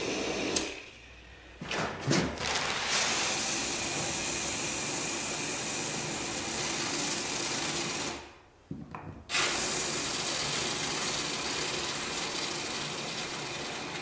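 Electric drill running in long steady stretches, with two brief stops, while drilling holes in wooden floorboards to cure a squeak.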